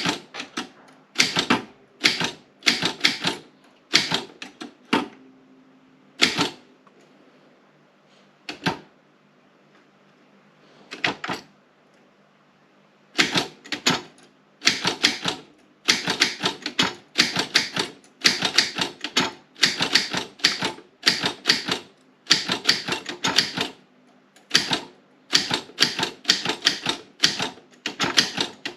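Typebars of an Optima M16 typewriter striking the platen as keys are typed in quick runs. About five seconds in the typing pauses, with only three single keystrokes over several seconds, then fast steady typing resumes near the middle and continues.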